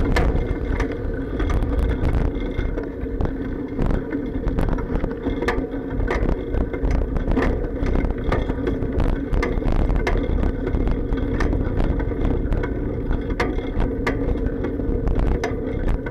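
Bicycle ride over pavement heard through an action camera's sealed waterproof case: a steady rumble of vibration with frequent sharp clacks and bumps passed up through the bike.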